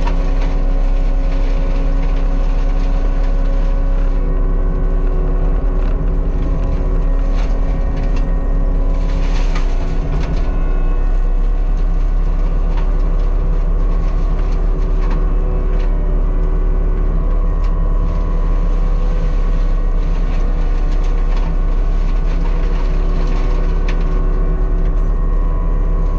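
Diesel engine of a land-clearing machine running steadily under work, with scattered clicks and cracks over the engine's steady drone.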